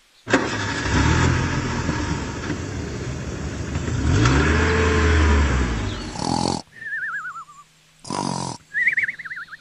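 Car engine sound effect running, revving up and back down about four to five seconds in, then cutting off suddenly. Then cartoon snoring sound effects: a warbling whistle gliding down, a short burst, and a warbling whistle gliding up.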